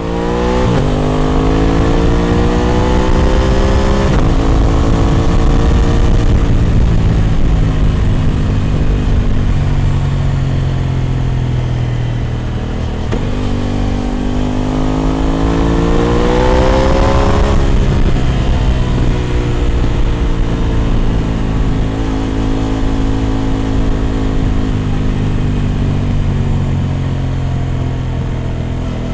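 Aprilia RS 660 parallel-twin engine breathing through an SC Project exhaust while riding. It revs up quickly at first with a shift about four seconds in, slowly drops off, pulls up again to a second shift or roll-off around eighteen seconds, then runs at a fairly steady pitch.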